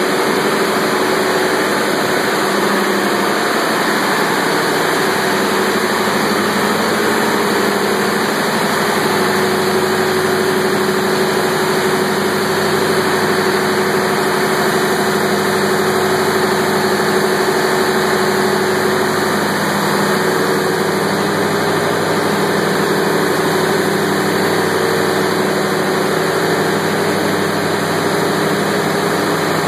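Cassava starch processing machinery running: an electric gear motor drives the rollers of a machine pressing wet cassava pulp. It makes a steady, loud mechanical hum with a held tone in it.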